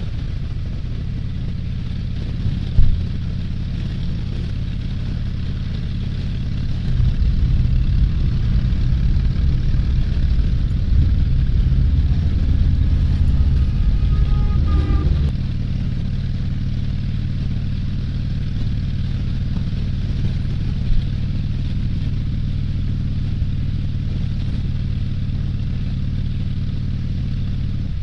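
Motorcycle and vehicle engines idling and rumbling in slow-moving traffic: a steady low engine hum that grows louder from about seven seconds in until midway. Near the middle one engine revs up briefly, and there is a sharp knock about three seconds in.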